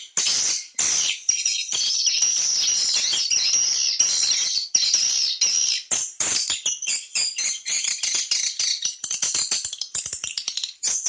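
Swiftlet lure call: a dense, rapid twittering of swiftlet chirps and clicks, unbroken from about two to six seconds in, then choppier. It is played to draw swiftlets into a bird house.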